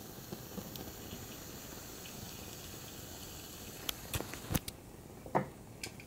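Burning plastic fidget cube: its flames hiss and crackle steadily, with several sharp pops and clicks in the second half.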